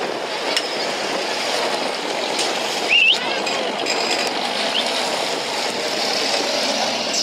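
Competition off-road 4x4 crawling slowly past at close range on dry dirt, a steady noisy rush of tyres and vehicle. A short, high rising squeak stands out about three seconds in.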